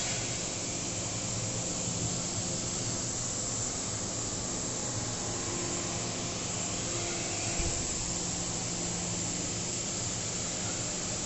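Steady running of industrial machinery: an even hiss over a constant low hum with a few steady tones, and a single knock about seven and a half seconds in.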